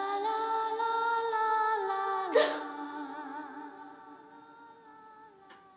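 Soft background score of long held, wordless vocal-like tones with a slight waver, fading out over the last couple of seconds. A short vocal burst breaks in about two and a half seconds in.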